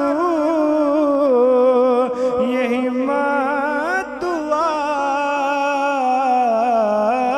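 A male naat reciter singing through a microphone, drawing out long wavering notes that glide from pitch to pitch without a break.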